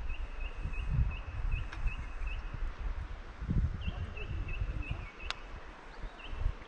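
A bird calling a run of short, high chirps on one pitch, about three a second, that stops about two and a half seconds in and starts again near four seconds. Low, irregular rumbling noise on the microphone lies underneath.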